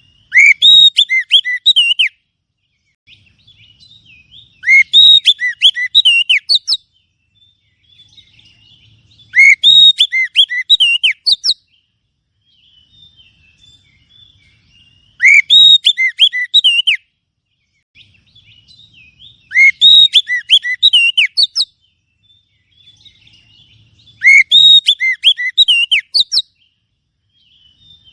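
Oriental magpie-robin (kacer) song played as a lure call: six loud phrases of fast, sweeping whistled notes, each about two seconds long, repeating every four to five seconds, with fainter calls between.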